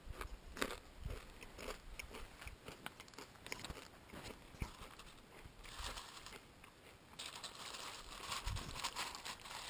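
Close-up crunching and chewing of a mouthful of dry Raisin Bran flakes, a run of small crisp crunches that grows denser and louder over the last few seconds.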